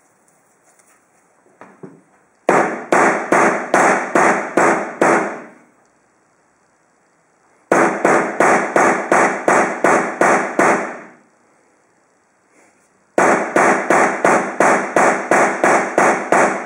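Hammer blows crushing an HDMI cable, in three quick runs of about eight to ten strikes each, roughly three a second, each blow ringing briefly off metal.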